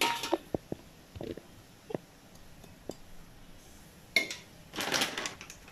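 Maida flour being tipped into a stainless steel bowl: a few light taps and clinks on the steel, then two bursts of rustling about four and five seconds in.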